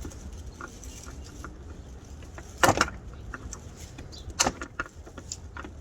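Sharp clicks and knocks of a pry tool working a part loose, the loudest knock a little under three seconds in and another cluster of knocks about four and a half seconds in.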